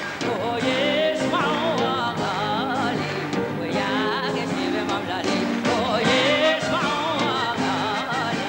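A woman singing into a microphone with a wide vibrato and run-on ornaments on held notes, backed by an orchestra.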